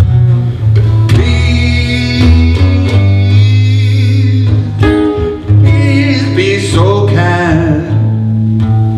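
Man singing with his own acoustic guitar, strummed steadily under long held vocal notes.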